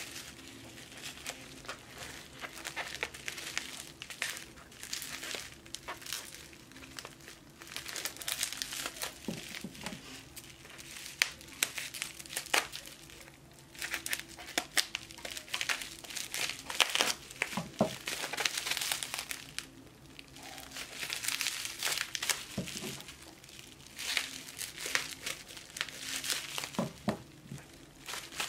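Bubble wrap and plastic packaging crinkling in bursts as hands unwrap a small package, with scissors cutting through the bubble wrap about halfway through and scattered sharp clicks.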